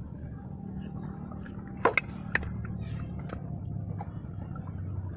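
A few sharp clicks or taps, four of them about two to three seconds in, over a steady low hum.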